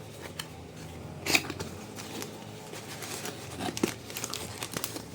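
Packaging being handled as a box is unpacked: scattered clicks and light rustling, with one sharper snap about a second in.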